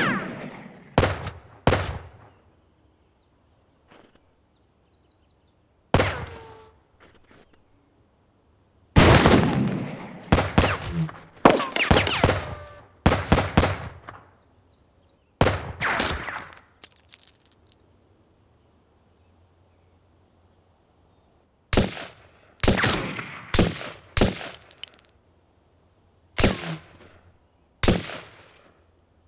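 Gunshots in an edited film gunfight. Single shots each ring out with an echoing tail, with a fast string of shots from about nine to fourteen seconds in and more separate shots near the end.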